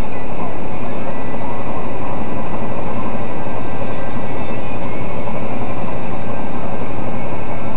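Steady, loud engine and road noise inside a semi truck's cab at highway speed.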